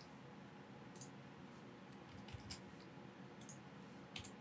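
A handful of faint, scattered clicks from a computer mouse and keyboard over near-silent room tone.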